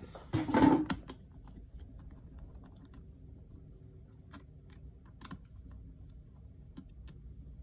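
Small sharp clicks and taps of a screwdriver and parts being handled as a MacBook Air's battery is unscrewed and removed, with one louder knock about half a second in.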